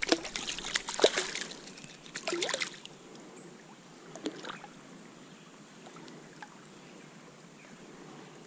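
Water splashing and sloshing as hands and a hooked trout move at the surface of a stream: a quick run of splashes through the first three seconds, a few more about four seconds in, then only faint trickling water.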